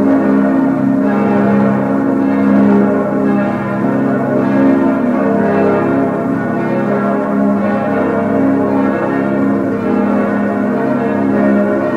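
Full peal of a ring of six bronze church bells cast by Schilling in 1958, tuned A♭, B♭, D♭, F, A♭, B♭. All six bells are swinging and ringing together, their strokes overlapping in a steady, dense peal.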